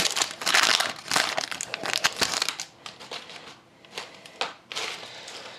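Foil wrapper of a hockey card pack crinkling as it is pulled off the cards, loudest in the first couple of seconds. Then come softer rustles and clicks as the stack of cards is handled.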